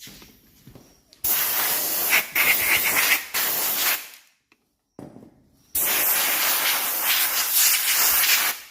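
Compressed air blowing from an air nozzle in two long blasts of about three seconds each, the first briefly interrupted twice, to blow dirt off a motorcycle fuel pump cover.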